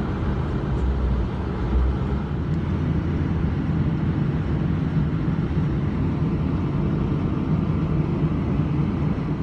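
Steady engine and road noise of a Ford F-350 pickup driving, heard from inside the cab.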